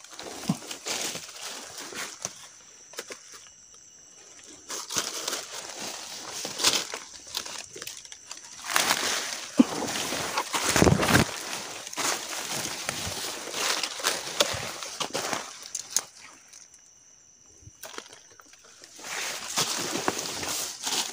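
Footsteps crunching through dry leaf litter and brushing past leaves and stems of forest undergrowth, in uneven bursts of crackling, stopping briefly twice.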